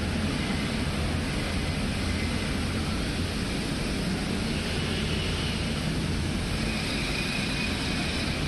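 Electric air blower running steadily to keep an inflatable bouncy castle slide inflated: a constant rush of air over a low hum.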